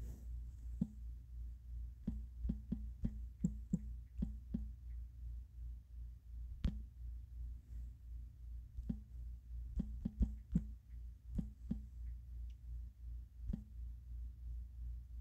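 Typing on a phone's on-screen keyboard: short taps in irregular quick runs, with pauses between words, over a low hum that pulses a few times a second.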